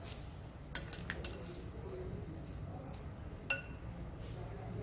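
A spatula stirring a thick dal mixture in a bowl, scraping and clinking against the bowl's side a few times. The sharpest clink comes about a second in, and one about three and a half seconds in rings briefly.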